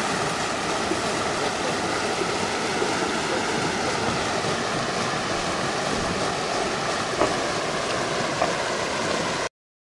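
Shallow mountain river rushing over a broken concrete weir and rocks: a steady rush of water that cuts off suddenly near the end.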